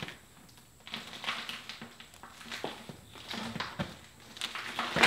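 A steel cant hook working a large pine log over, giving irregular scrapes and knocks of the hook and bark.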